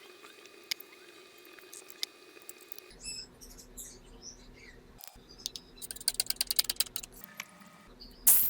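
Small clicks, taps and scratches of hands and tools working on a coin. A low steady hum comes in about three seconds in, and a quick run of light ticks follows near the end.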